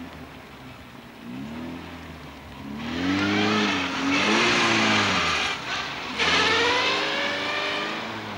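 Audi saloon's engine revving up and down as it is thrown around cones on tarmac, with its tyres squealing in two long stretches, the first about three seconds in and the second starting just after six seconds.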